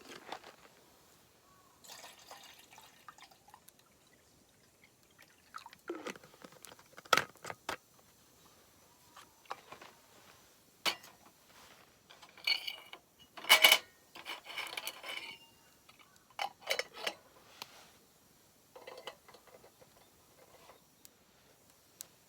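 Water poured in short spells, with separate clinks of cookware and cups in between, the loudest clink about halfway through.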